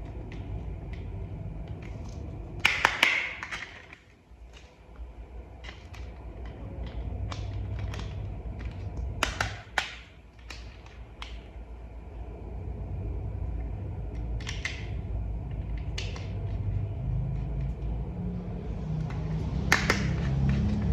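Plastic toy vehicle parts being handled and fitted together: scattered clicks and snaps, with a louder cluster about three seconds in and another near the end, over a low steady hum.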